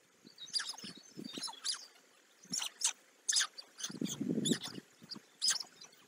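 White stork nestlings cheeping with short, high chirps while the adult feeds them at the nest, with a brief low rustle about four seconds in.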